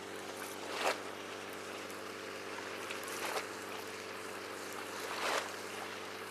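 Small sea waves lapping and splashing against the quay below, a swell rising and falling about every two seconds over a steady wash of sea.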